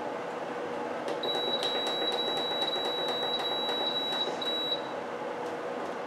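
Frigidaire FFAD2233W1 dehumidifier running with a steady fan rush and faint hum. About a second in, its control panel gives a long high-pitched beep lasting some three seconds, with rapid light ticks, as its buttons are pressed, then a short second beep.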